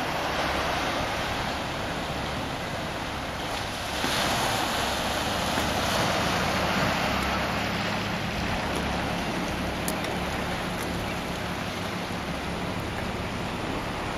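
Small sea waves washing onto a sand and rock beach, a steady surf wash that swells louder for a few seconds about four seconds in, with wind rumbling on the microphone.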